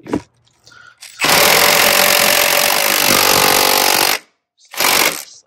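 Milwaukee M12 cordless impact tool hammering as it runs an 18 mm socket on an extension down onto a strut's top mount nut, tightening it. It runs for about three seconds, then gives one short second burst near the end.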